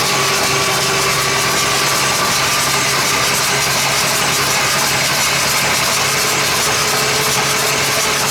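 Long-seized BUDA 1125 cu in straight-eight diesel being turned over by its starter without firing: a loud, steady whirring churn that holds even throughout.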